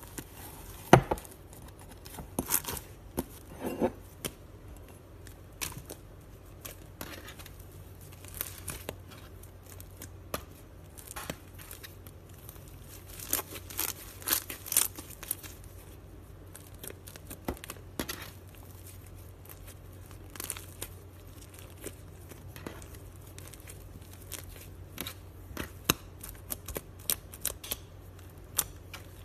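Thick slime being kneaded, stretched and pressed by hand, giving irregular crackling pops and tearing sounds, with a sharp pop about a second in as it works against the glass bowl.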